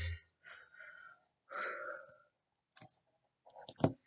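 Breaths and a sniff close to the microphone, with two or three small clicks near the end.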